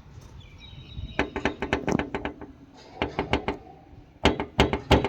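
Car bonnet rattling in its closed position: three runs of quick knocks, about six a second. The speaker puts the rattle down to a gap that the bonnet's adjustable rubber stopper pads leave when screwed in too far.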